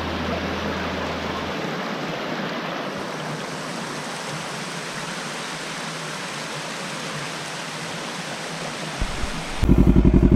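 Rocky Creek's shallow water running over bare rock slabs at a cascade, a steady rushing hiss; the creek is running low. Near the end this cuts to a much louder motorcycle engine running.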